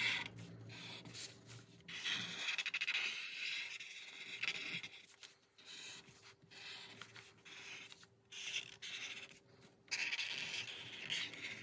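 Felt-tip permanent marker drawn over paper, the tip rubbing and scratching as it traces lines. It goes in stretches of a second or two, with short pauses between strokes.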